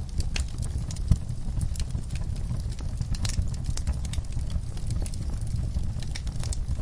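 Fire in a fireplace crackling, with frequent small pops over a low steady rumble and one louder pop about a second in.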